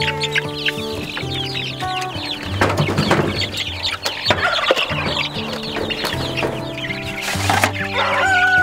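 A crate of young chicks peeping, many short rising chirps overlapping, over background music. Near the end a longer, steady call from an adult chicken begins.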